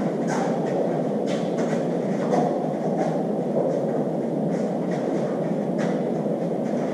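Steady low rushing noise with a few faint taps over it.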